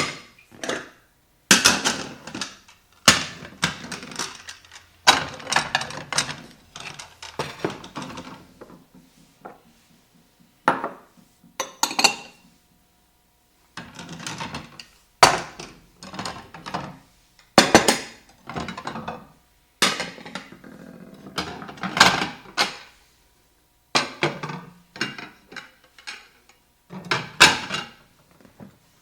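Dishware clinking and clattering: clusters of sharp clinks with brief ringing, one every second or two, separated by short pauses.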